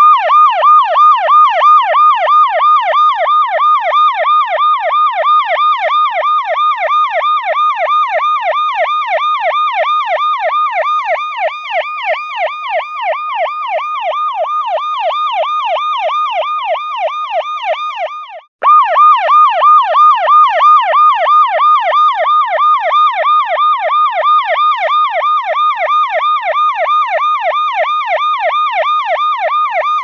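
Electronic siren sounding a rapid, repeating up-and-down wail, several pitch sweeps a second. It cuts out for a moment about eighteen seconds in and starts again.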